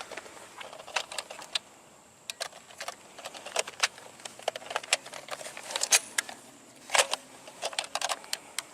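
Irregular plastic clicks and rattles of a Nerf Longarm blaster being handled and readied, with the sharpest clacks about six and seven seconds in.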